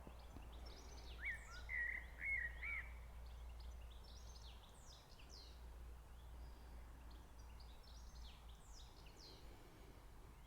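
Faint birdsong: a brief run of warbled notes about a second in, then scattered short, high chirps that drop in pitch, over a steady low rumble.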